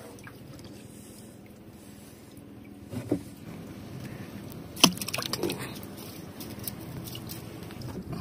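Steady low engine hum of a small fishing boat, with a knock about three seconds in and a sharper, louder knock about five seconds in, followed by light clattering.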